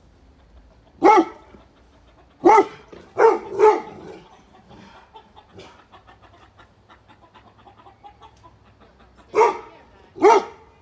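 A dog barking: six short, loud barks, one about a second in, three close together between two and four seconds, and two more near the end.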